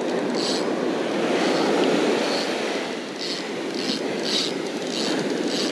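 Steady rushing of surf washing up the beach together with wind on the microphone, with brief brighter hisses every second or so.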